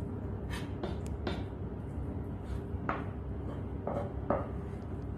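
A metal spoon scraping and clinking against a stainless steel plate of rice and chicken, several short strokes spread over a few seconds, over a steady low hum.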